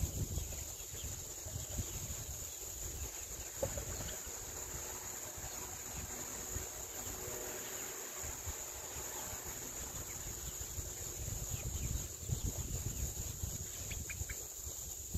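Steady high-pitched chorus of insects buzzing, with a fluctuating low rumble of wind on the microphone beneath it.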